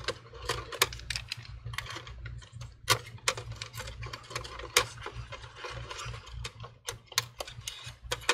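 Irregular light clicks and taps of a screwdriver and fingers working small screws and cable connectors on a computer motherboard, under a faint steady low hum.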